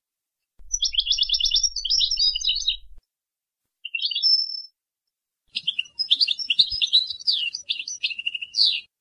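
European goldfinch singing in three phrases of fast, chattering twitters and trills: one starting just after the start, a short one near the middle, and the longest from about five and a half seconds to near the end. This is the Boujaad-style song prized by Moroccan goldfinch keepers.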